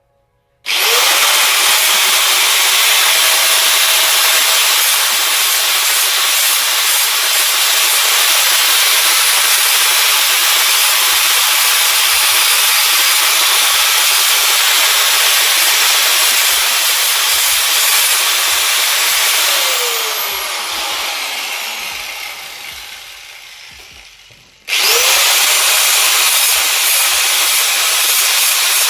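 Electric power grinder sanding down welds on steel bicycle cranks. It starts just under a second in and runs steadily at full speed. About 19 seconds in it is switched off and winds down with a falling pitch, then starts up again about 25 seconds in.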